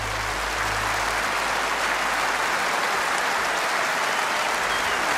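A large audience applauding: the clapping swells in over the first second and then holds steady. Underneath it, a low held note from the orchestra fades out about a second in.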